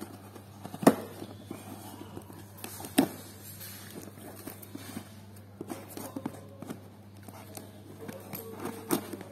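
Scissors cutting and scraping at packing tape on a plastic-wrapped cardboard parcel, with crackling and rustling of the tape and wrap as the box is handled. Two sharp knocks stand out, about a second in and about three seconds in. A steady low hum runs underneath.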